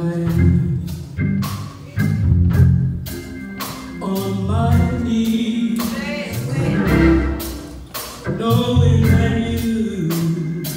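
Live gospel music: a woman sings through a microphone and PA, held and bending notes, over a band with drum kit and keyboard keeping a steady beat.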